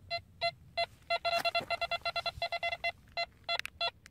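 Nokta Impact metal detector giving short, pitched target beeps as a 50-cent coin is moved in front of its Black Dog search coil at about 50 cm. The beeps come singly at first, then in a fast run for about two seconds, then singly again.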